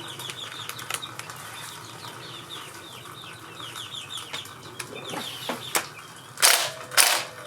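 Chicks peeping: a steady run of short, high, falling cheeps, with two loud, noisy bursts near the end.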